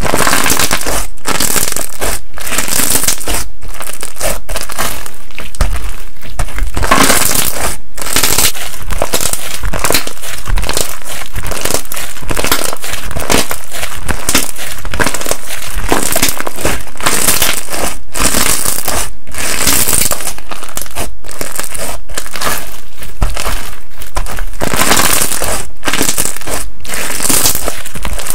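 Slime being squeezed, pressed and stretched by hand, crackling and crunching continuously, with brief breaks between presses.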